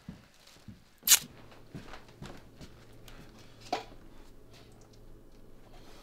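A person handling things in a kitchen to get a drink. There is one sharp, loud clack about a second in, a second knock near four seconds, and light handling knocks and clicks over a low, steady hum.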